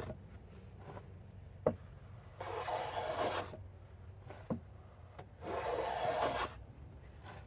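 Hand plane shaving along the edge of a wooden board in two strokes of about a second each, each stroke preceded by a light knock.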